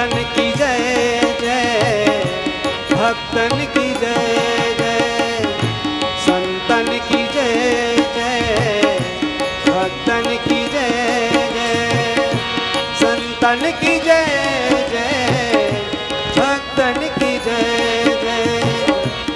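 Devotional bhajan music with tabla. A gliding melody line runs over steady held notes.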